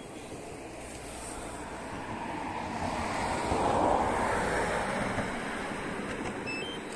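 A passing vehicle's rushing noise, swelling to a peak about four seconds in and then fading away.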